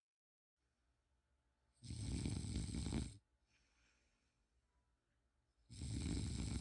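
Snoring: two rattling snores about four seconds apart, with a softer breath out between them.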